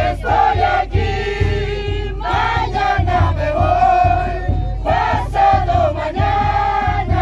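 Music with several voices singing together in long held notes over a steady low beat.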